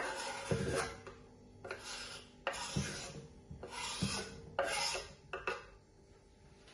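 Chopped vegetables being scraped off a wooden cutting board into a glass bowl: about five short rasping scrapes, fading to quiet near the end.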